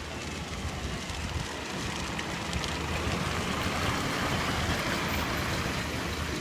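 Burning barley field: a steady rushing noise with faint crackles, swelling louder through the middle.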